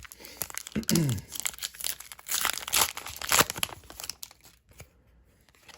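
Wrapper of a trading-card pack being torn open and crinkled in the hands, a dense run of crackles loudest midway, with a short vocal sound about a second in.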